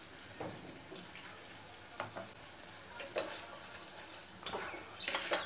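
Wooden spatula stirring and scraping thick masala gravy in a kadai, with a handful of short scrapes and taps over a faint sizzle. This is the sautéing (koshano) of the tomato-cashew paste with a little added water.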